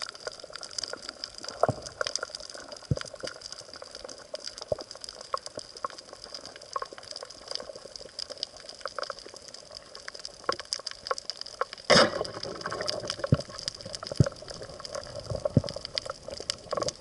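Underwater sound on a coral reef: a steady crackle of many sharp clicks over a hiss, with a louder burst of bubbling water about twelve seconds in.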